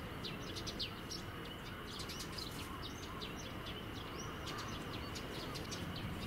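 Small birds chirping, many short high calls, some sliding down in pitch, scattered through a steady outdoor background hiss.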